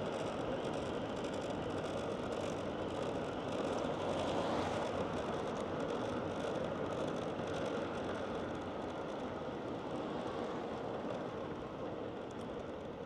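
Steady road and wind noise of travelling along a town street in traffic, easing slightly near the end.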